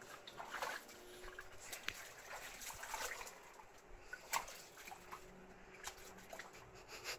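Dogs splashing and sloshing about in shallow water: faint, with scattered small splashes and drips.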